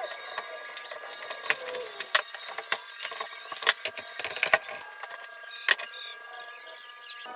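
Metal hand tools clinking and clattering irregularly as they are picked out of toolboxes and sorted, over a faint steady hum.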